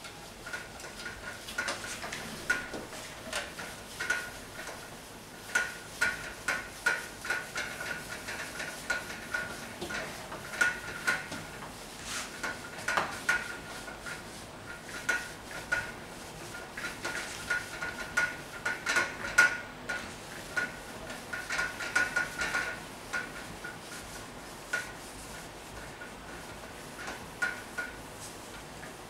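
Whiteboard eraser rubbed back and forth across a whiteboard in quick, irregular strokes, each stroke a short squeaky rub.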